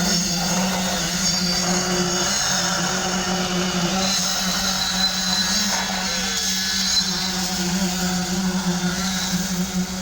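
Concrete-pouring machinery running with a steady, unchanging mechanical drone.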